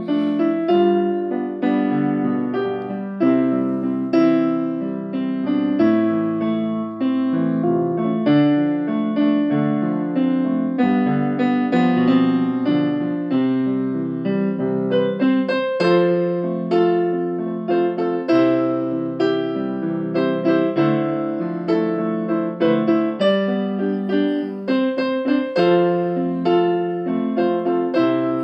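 Piano-toned keyboard music: a melody of individually struck notes over sustained chords.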